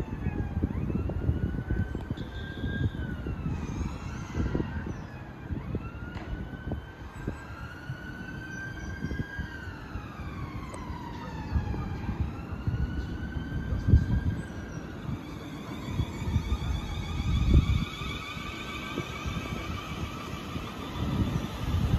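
Emergency vehicle siren wailing, its pitch rising and falling slowly over several seconds, again and again, over a low rumble of street noise.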